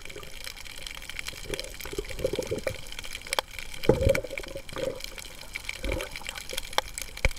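Underwater on a coral reef: scuba exhaust bubbles gurgle in several bubbly bursts, the loudest about four seconds in, over a steady hiss scattered with sharp clicks.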